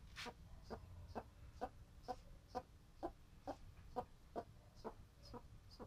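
Red-footed tortoise clucking like a chicken: a steady series of short, soft clucks, about two a second.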